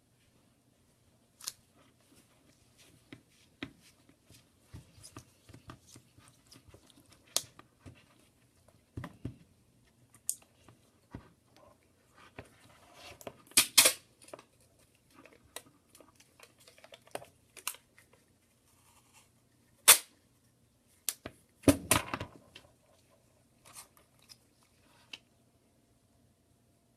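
Scotch tape being pulled, torn and pressed onto a cracked phone screen's glass: scattered small clicks and taps, with a few short tearing rasps about halfway and again about two thirds through, and one sharp click just before the second.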